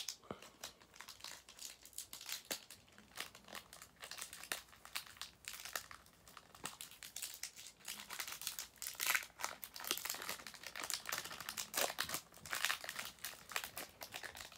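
Plastic trading-card pack wrapper crinkling and rustling in the hands, a dense run of irregular crackles, busiest about two-thirds of the way through.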